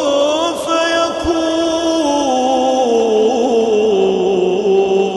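A man chanting Quranic recitation in a slow, melodic tajweed style, drawing out one long vowel: the pitch wavers in ornaments, steps down about halfway through, then settles into a steady held note.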